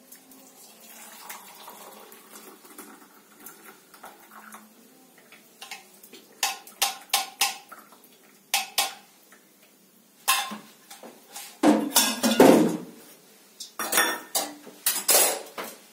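Steel saucepan, spoon and tea strainer clinking and clattering while tea is strained into cups. The first few seconds are quiet, then sharp metallic clinks come at uneven intervals, with the loudest clatter a little past the middle.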